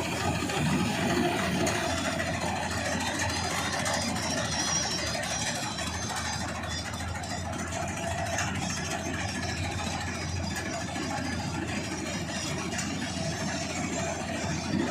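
John Deere 5310 tractor's diesel engine running steadily while driving a Standard TSC-513 tractor-mounted combine harvester.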